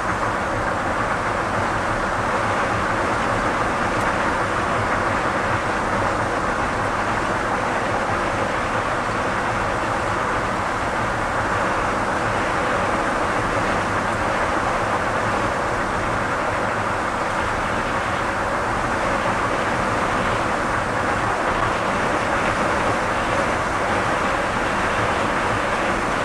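A 1979 Ford F250 Ranger pickup cruising at a steady speed, heard from inside the cab: engine, tyre and wind noise blended into one steady rumble that stays even throughout.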